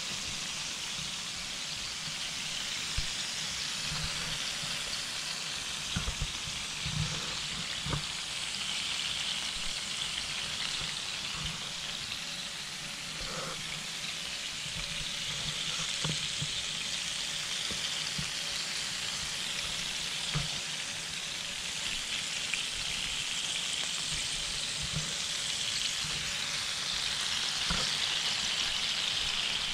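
Whole lobsters sizzling steadily on the hot ribbed plate of a round electric grill, their juices frying on the plate, with a few soft low knocks scattered through.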